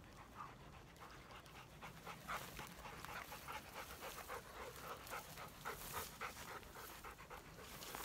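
A bird dog panting in quick, faint puffs, about three a second.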